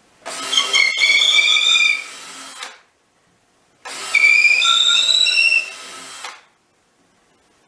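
Handheld electric drill boring into a cedar log tabletop in two runs of about two and a half seconds each, a quieter winding-down tail at the end of each. The bit gives a high, wavering whistle as it cuts, the lumber whistle that comes when the flutes pack with chips and the bit stops digging in.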